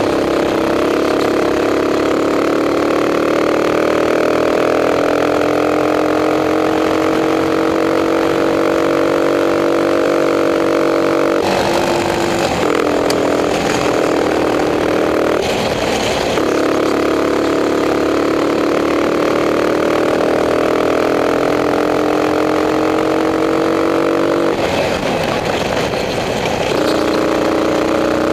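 Racing kart engine at full throttle, heard onboard, its pitch climbing steadily for about ten seconds down a straight. It breaks off and falls twice, about eleven seconds in and near the end, when the kart slows for a corner, then climbs again as it accelerates out.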